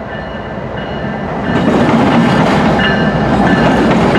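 CN freight train passing close by, its cars' wheels rolling over the rails, growing louder about a second and a half in.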